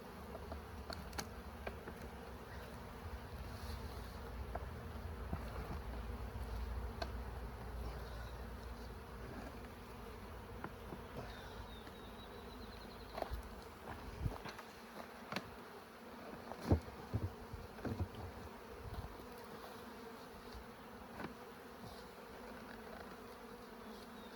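Honeybees buzzing steadily around an opened hive, with a few sharp knocks and clicks in the middle of the stretch.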